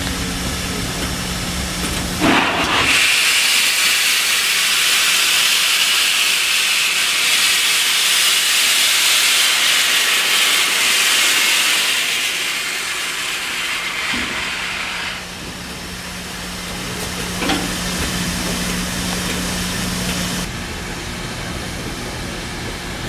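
Norfolk & Western Class J 611 steam locomotive venting a loud, steady hiss of steam. It starts abruptly a couple of seconds in and fades away about halfway through. A steady low hum continues underneath.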